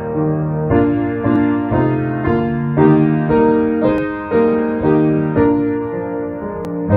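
Piano playing slow, sustained chords, a new chord or note struck about every half second to second.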